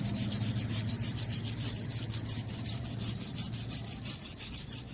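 A brush scrubbing quickly back and forth on a small chrome-plated plastic emblem, in rapid, even, scratchy strokes, trying to strip the chrome; the chrome is not coming off.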